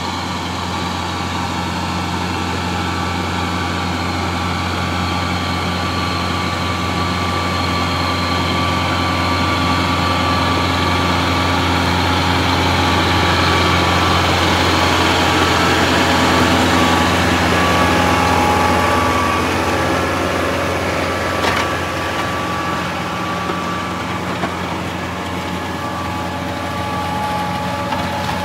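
Kubota utility tractor's diesel engine running steadily as it drives along a gravel driveway pulling a box blade, getting louder as it passes close in the middle and easing off after. A single sharp click about two-thirds of the way through.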